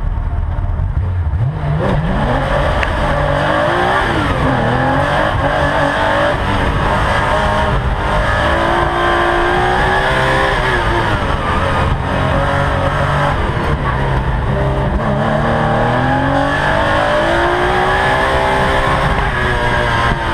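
Porsche 914/6's air-cooled flat-six heard from inside the cockpit, launching hard about a second and a half in, then revving up and down as the car accelerates, lifts and shifts through an autocross course.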